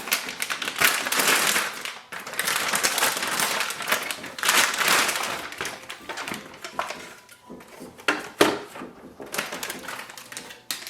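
Plastic packaging rustling and crinkling in repeated bursts as a laser printer toner cartridge is unwrapped, with a few sharp clicks in between.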